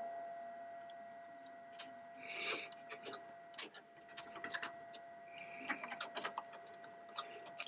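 Scattered light plastic clicks and taps as RAM sticks are pressed into the memory slots of a Dell OptiPlex 755 motherboard.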